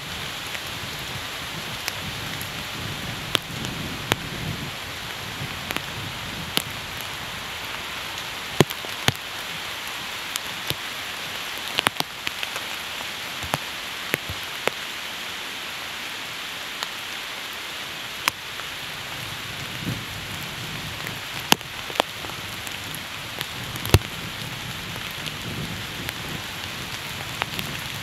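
Steady rain falling, with frequent sharp ticks of drops landing close by and a low rumble near the start and again in the last third.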